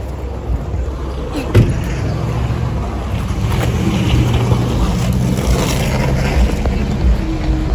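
A motor vehicle's engine humming steadily in street traffic, strongest from about two to six seconds in. There is a single thump about a second and a half in.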